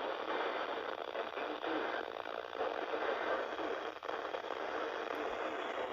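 Steady static hiss from a weather radio receiver, with no voice coming through.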